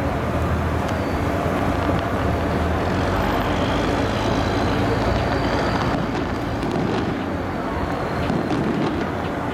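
Fishing boat's engine running steadily as the boat moves through the harbour, a low drone. From about two-thirds of the way in, faint firecracker pops join it.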